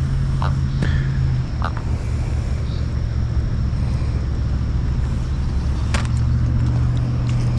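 A steady low engine hum, like a motor vehicle running, whose pitch shifts slightly about a second and a half in and again near six seconds, with a few short faint chirps and a sharp click near six seconds.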